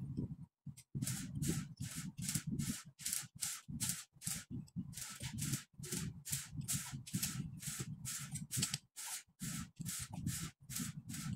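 Quick rasping strokes, about three a second, from hand tool work on a Toyota 1FZ engine block's crankshaft and bearing caps.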